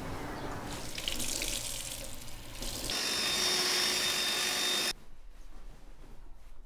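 Water running from a tap in a steady rush, louder from about three seconds in, then cut off abruptly near five seconds; a fainter hiss follows.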